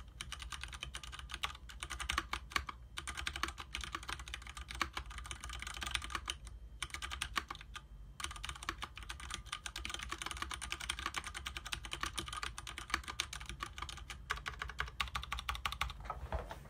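Steady, fast typing on a Leopold FC750R mechanical keyboard with tactile Cherry MX Clear switches and DSA keycaps: a dense run of key clacks, with short pauses about three and seven seconds in.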